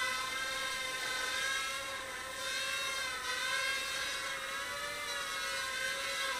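JJRC H21 micro hexacopter's six small brushed motors and propellers whining steadily as it hovers and sets down on a landing pad, with small shifts in pitch as the throttle changes. The whine cuts off suddenly at the end as the motors stop.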